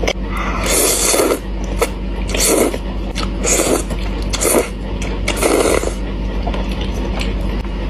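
Noodles being eaten close to the microphone, slurped and chewed in about five noisy bursts roughly a second apart, over a steady low hum.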